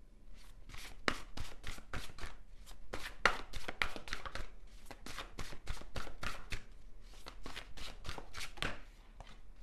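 Tarot cards being handled and shuffled: a run of quick, irregular sharp clicks and slaps of card against card, several a second.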